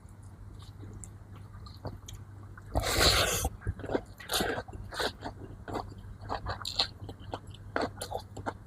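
Close-miked eating: chewing and biting with many short wet clicks and smacks, and a louder noisy burst about three seconds in. A low steady hum runs underneath.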